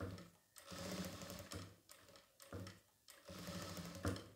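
Jack F4 single-needle lockstitch industrial sewing machine stitching in about four short runs, each under a second, stopping in between. This is slow stop-start control practice, with the needle brought down at each chalk mark on the cloth.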